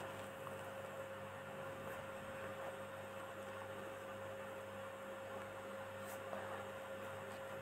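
Faint steady electrical hum with a thin steady tone above it; no distinct cooking sounds stand out.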